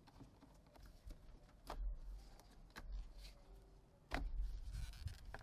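Faint tool and handling noise: a few light clicks of a screwdriver working a hose clamp, then low rubbing and bumping as the corrugated rubber air-intake hose is worked off the throttle body about four seconds in.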